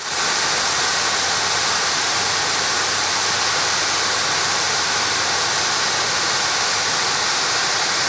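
Water pouring over a stepped stone dam spillway into the pool below, a loud, steady rush that starts suddenly.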